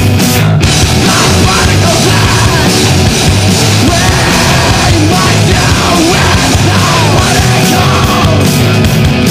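Loud, dense screamo/noise rock recording: distorted electric guitars, bass and pounding drums in a constant wall of sound.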